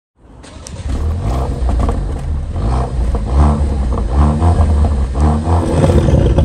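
Ford Mondeo 2.0 EcoBoost turbocharged four-cylinder revved in repeated short blips through a tuned exhaust, its vacuum-operated exhaust valve open in the loud mode. The sound fades in from silence at the start.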